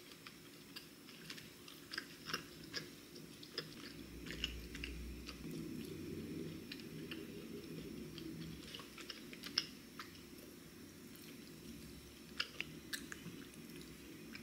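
Quiet chewing of a chewy matcha glutinous-rice ring pastry filled with red bean paste: scattered soft mouth clicks over a faint steady hum.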